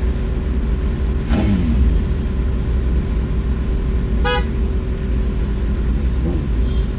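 Steady low traffic rumble with a short vehicle horn toot about four seconds in.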